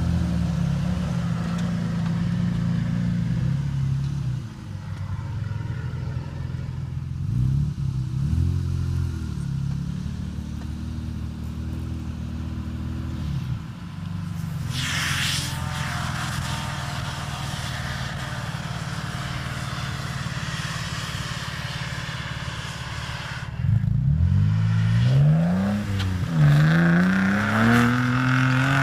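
Off-road vehicle engine running and revving, its pitch rising and falling again and again, with the hardest revving in the last few seconds. A brief rushing hiss comes about halfway through.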